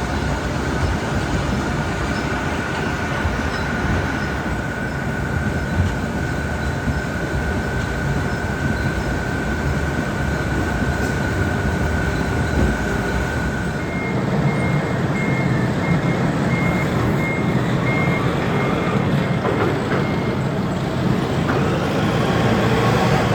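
Grimme Varitron 270 self-propelled potato harvester running while lifting, with a steady engine drone and clattering webs and elevators. A steady high whine stops about halfway, and then a fast-pulsed beeping sounds for several seconds.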